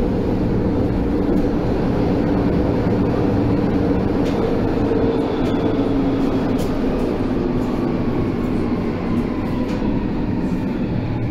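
Inside a Berlin U-Bahn H97 (Baureihe H) car running through the tunnel: a steady rumble of wheels on rail with a constant drone. In the second half a faint motor whine falls slowly in pitch.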